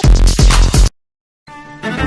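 Electronic dance-music ringtone with a heavy beat, cut off abruptly about a second in. After half a second of silence, a different instrumental ringtone starts quietly and grows louder near the end.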